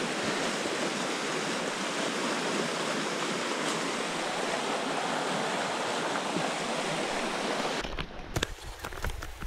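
Steady rushing of a flowing creek running over rapids. It cuts off abruptly near the end, giving way to a few light knocks and scuffs.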